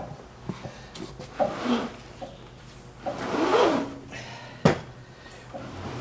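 Flat laced drive belt being handled and pulled through a sawmill's frame and over its pulley: scraping and rubbing of the belt against the metal, with small knocks and one sharp click a little past two-thirds through.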